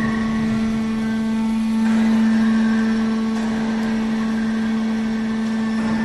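Hemp baler running, its motor giving a steady hum at one constant pitch, a little louder about two seconds in.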